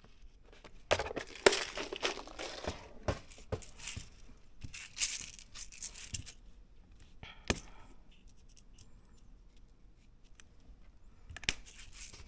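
Hands handling small parts and packaging at a workbench: two spells of crinkling, tearing-like rustling, with a few sharp clicks of small hard parts.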